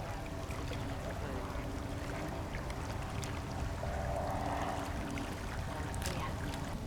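Distant light aircraft's propeller engine droning steadily under a low wind rumble, swelling slightly about four seconds in.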